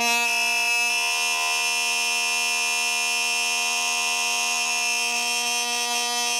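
Piri, the Korean double-reed bamboo oboe, holding one long note played as a multiphonic: a single fingering that sounds two tones at once like a chord, coming out rough and dirty-sounding.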